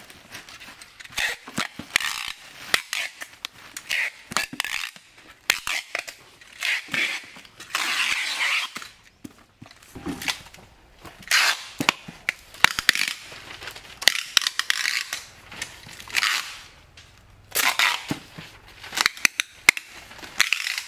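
Packing tape torn off a handheld tape dispenser in repeated rasping rips, short and longer, while cardboard boxes are sealed, with rustling of cardboard, plastic wrap and leaves between the strips.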